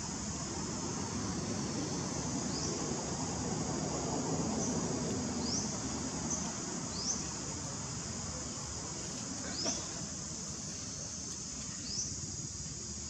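Steady high-pitched insect chorus, with a few short rising chirps every two seconds or so.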